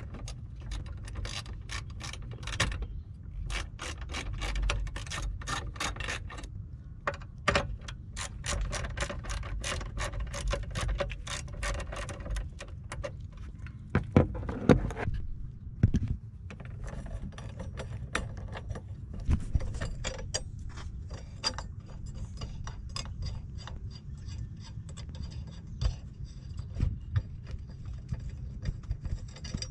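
Socket ratchet clicking in rapid runs with short pauses, undoing the 10 mm nuts of a car battery hold-down bracket. A few louder knocks come about halfway through.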